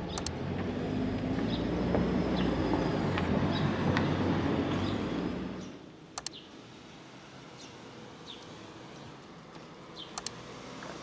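Riding noise from a bicycle ride: a steady rumble that drops away suddenly about six seconds in, leaving a quiet street. Sharp double clicks come three times: near the start, a little past the middle, and near the end.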